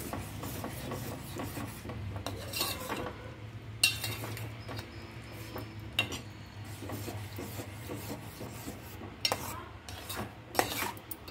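Steel slotted spoon stirring thick, bubbling bread halwa in a metal pot, scraping and rubbing along the bottom, with a few sharp clinks against the pot. A low steady hum runs underneath.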